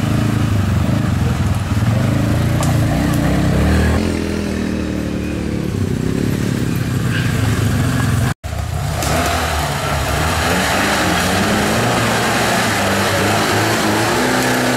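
Quad bike (ATV) engine running as it crawls down a muddy trail over logs, its pitch rising and falling with the throttle. After a sudden cut about eight seconds in, a UAZ-469 off-roader's engine runs steadily as it drives through the woods.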